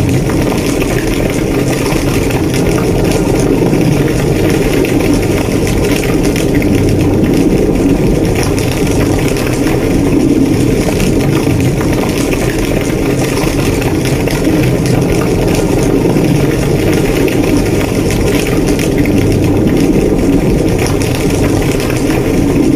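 A burning house: a large fire giving a steady, low roar, with faint crackles through it.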